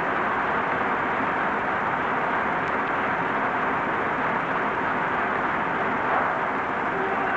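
Steady, loud mechanical roar filling the bus garage, holding the same pitch and level throughout.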